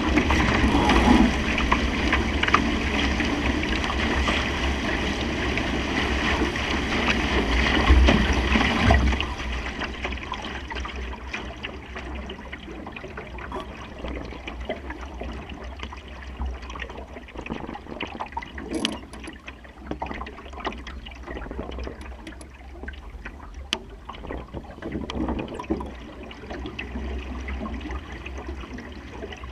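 Water rushing and gurgling along a Supernova sailing dinghy's hull, with wind buffeting the microphone. It is loud for about the first nine seconds, then eases to quieter water sounds with occasional clicks.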